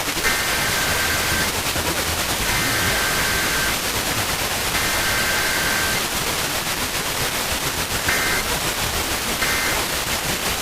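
Emergency Alert System SAME digital header: three buzzing two-tone data bursts of about a second each, a second apart, then two short end-of-message bursts near the end. All of it is heard over steady FM radio static hiss.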